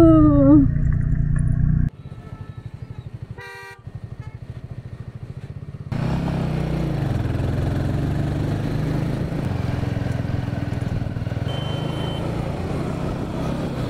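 Royal Enfield Himalayan 450 motorcycle engine running while riding, with steady noise from the ride. A vehicle horn sounds briefly about three and a half seconds in. The sound shifts abruptly about two seconds in and again about six seconds in, as between clips.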